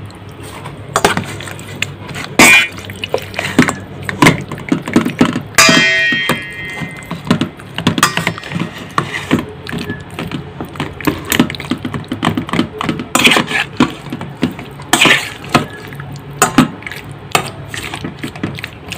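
Metal spoon clinking and scraping against a stainless steel bowl as raw chicken pieces are stirred and turned in their marinade, in irregular clicks and knocks. A short ringing tone sounds about six seconds in.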